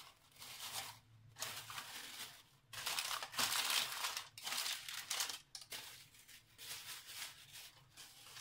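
Thin plastic sheet crinkling and rustling in bursts as hands fold and tuck it over bread tins. The loudest stretch comes about three to four seconds in.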